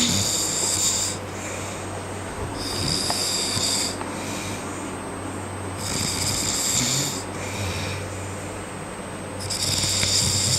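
A man snoring heavily in his sleep: a loud rasping snore about every three and a half seconds, each just over a second long, with a fainter breath out between.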